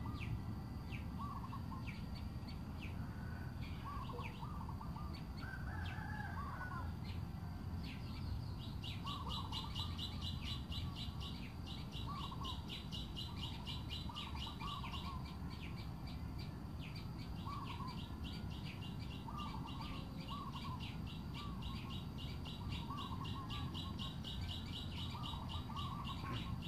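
Birds calling: short clusters of rising call notes every second or two, joined about eight seconds in by a fast, high pulsing trill in long runs, over a steady low rumble.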